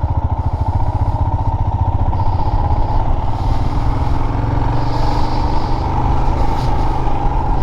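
Royal Enfield Himalayan's single-cylinder engine running steadily while the motorcycle is ridden along the road, its even firing pulses heard with a low rumble.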